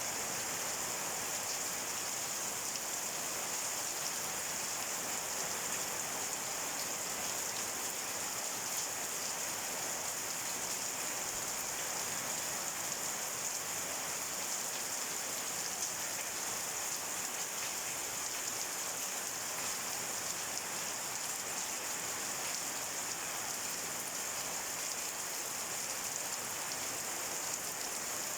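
Heavy rain falling steadily, a dense even hiss of drops with fine pattering throughout.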